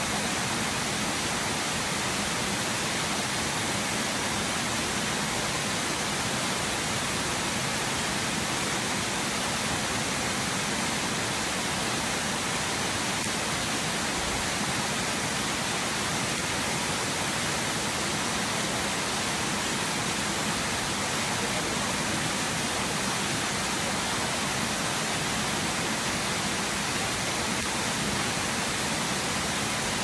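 Waterfall: a steady rush of falling water, unchanging throughout.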